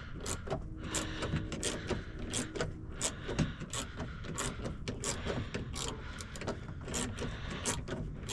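Hand ratchet clicking in short repeated strokes, a few clicks a second, as a long bolt inside a car door is backed out.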